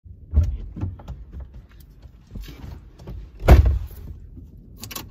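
A person getting into a minivan's driver's seat: knocks and rustling, with one loud thump about three and a half seconds in and a few light clicks near the end.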